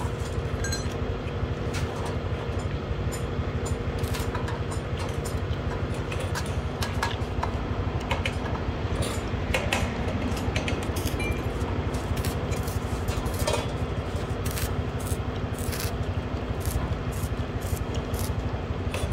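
Arc welding with a stick electrode on galvanized square steel tube: the arc's irregular crackle over a steady electrical hum.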